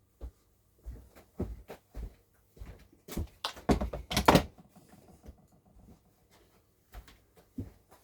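A series of irregular knocks and clunks, with a dense run of louder clatter about three to four and a half seconds in.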